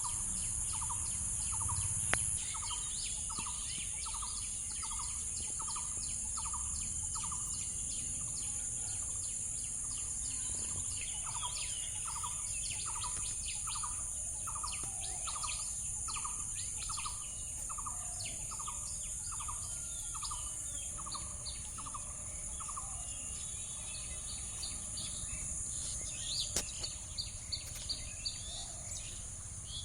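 Birds chirping and singing over a steady high-pitched drone and a low background rumble. One bird repeats a short note about twice a second in long runs, pausing for a few seconds in the middle.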